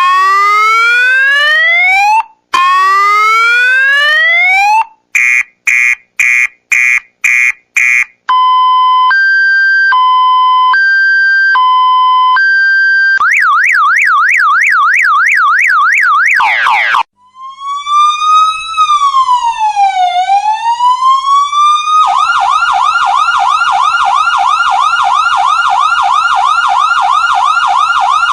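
A run of electronic siren sound effects, one pattern after another. First come two rising whoops, then a string of short beeps about two a second. Next is a two-tone hi-lo siren switching pitch about once a second, then a fast yelp. After that a slow wail rises, falls and rises again, and a steady fast yelp carries on to the end.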